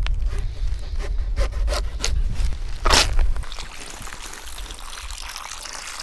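Scraping and knocking of hand handling over a low rumble, with a louder scrape about three seconds in. After that, water from a plastic bottle pours into a shallow clay dish in a steady splashing trickle.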